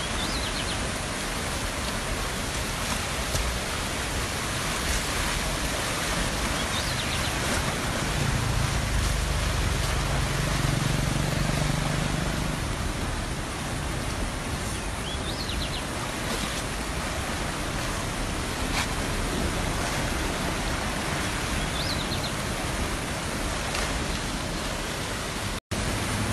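Steady rushing noise of a muddy stream in flood, running fast over its bank. A low hum swells under it for a few seconds midway, and the sound breaks off for an instant near the end.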